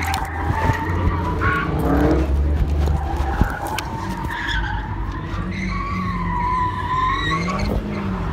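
Tyres squealing in long, wavering screeches as a Dodge Hellcat slides around the course, over the low rumble of its supercharged V8, which is heaviest for the first three seconds or so.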